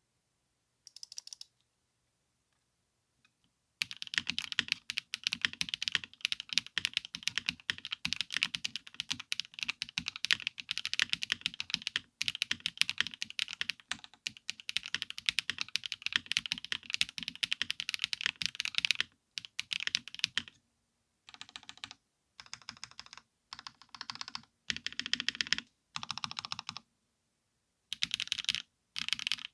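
Mechanical keyboard typing: a DROP CSTM80 board with HMX Lotus linear switches and GMK Botanical keycaps. After a brief tap, fast continuous keystrokes run for about fifteen seconds, then short bursts of typing follow with pauses between.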